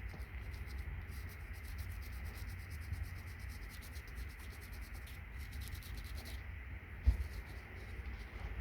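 Gloved fingers rubbing gold-plated keyboard contacts, loosening the gold foil after they have soaked in weak hydrochloric acid. There is a steady rubbing with a low rumble underneath, and one short thump about seven seconds in.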